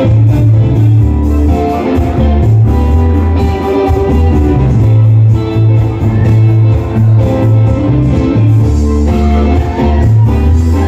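A live rock band playing: electric guitar, bass guitar and keyboards over drums, loud, with a strong bass line.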